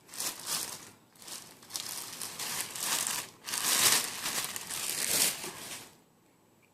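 Packaging crinkling and rustling in irregular bursts as the polisher is unwrapped, stopping about a second before the end.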